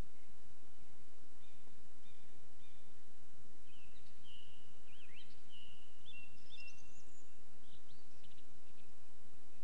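Birds starting the dawn chorus in the dark: a few short high phrases about a second and a half in, then a longer song of held whistled notes and quick rising sweeps from about four to eight seconds in, over a steady background hiss.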